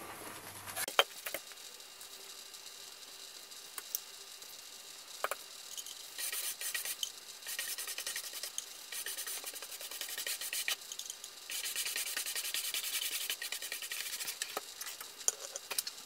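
Bristle paintbrush scrubbing paint onto a cardboard shoebox in several stretches of quick, scratchy strokes, with a few sharp taps of the brush and paint dish.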